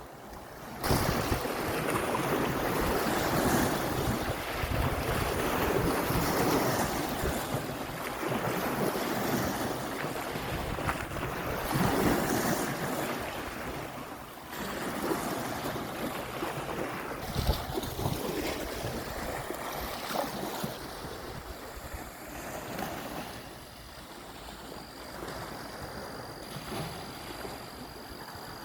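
Waves washing ashore, the rush of water rising and falling in surges, starting abruptly about a second in.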